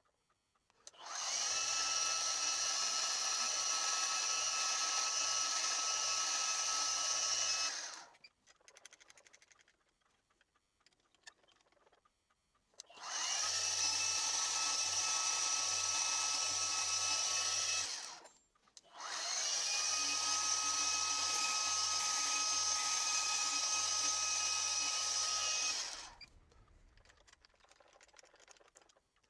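Milling machine spindle drilling holes in a metal part, running three times for several seconds each with short pauses between. Each run starts with a rising whine and then holds a steady whine.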